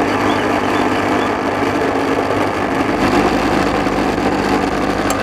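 Electric juicer-mixer grinder motor running steadily at speed, its blades grinding raw boneless chicken with bread and spices into a mince.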